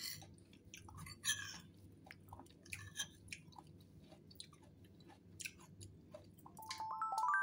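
Metal spoon stirring cut fruit in a creamy dressing in a ceramic bowl: soft wet mixing sounds with irregular clicks of the spoon. Near the end a chiming jingle starts and grows louder.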